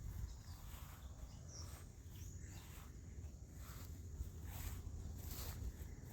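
Faint outdoor ambience: a steady low rumble with a few soft rustles, and a couple of faint short high chirps in the first half.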